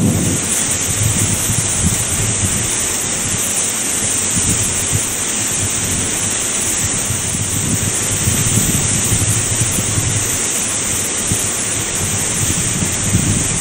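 Small mountain waterfall pouring off a rock ledge: a steady rushing of falling water.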